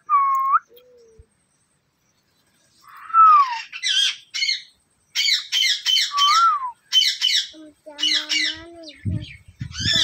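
Alexandrine parakeet calling loudly in a run of short, harsh squawks, several a second, with a few notes that slide down in pitch.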